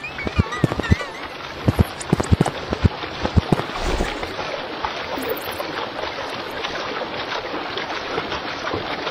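Steady hissing noise with many sharp crackles and knocks, most of them in the first few seconds; a warbling tone fades out in the first second or so.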